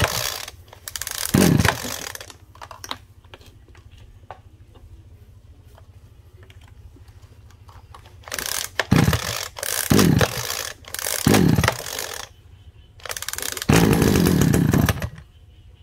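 Pull-cord starter of a Stihl FR 2602 backpack brush cutter's 26 cc two-stroke engine being yanked: short cranking whirs falling in pitch, one about a second in and three more close together later, then a longer, louder burst near the end before it goes quiet again.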